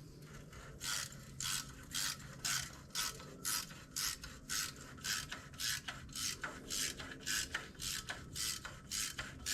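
Hand ratchet wrench running a bolt in, its pawl rasping on each back-swing in an even rhythm of about two strokes a second.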